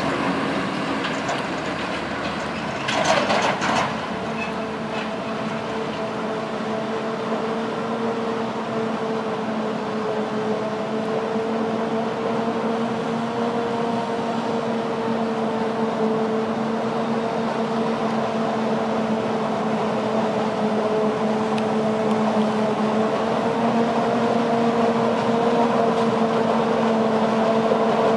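A tractor hauling a silage dumper runs in the first few seconds, then after a short loud burst about three seconds in, a Claas Jaguar 970 self-propelled forage harvester with an Orbis 750 maize header runs steadily while chopping maize: a constant machine drone with a held whine, growing louder toward the end as it comes closer.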